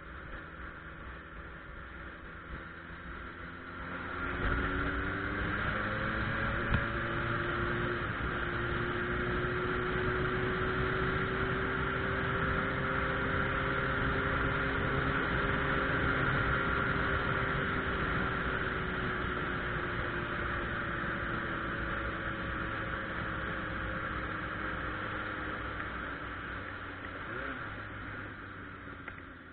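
Suzuki Bandit 1200's inline-four engine under way. About four seconds in the throttle opens and the revs climb, then it holds a loud, steady cruise before easing off near the end.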